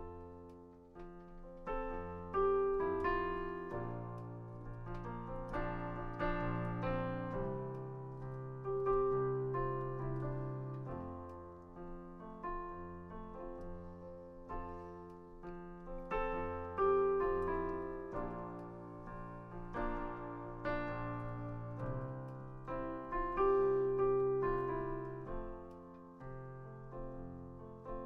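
Solo piano playing a slow introduction: chords struck and left to ring over a bass line, with no singing.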